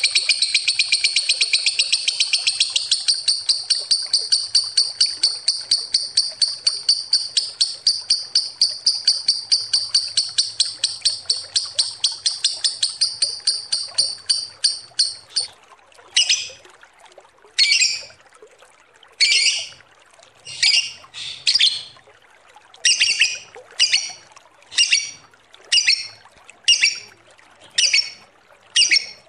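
Lovebird ngekek: a long, rapid, unbroken chattering run of shrill notes for about fifteen seconds. It then breaks into separate short bursts of calls, about a second and a half apart.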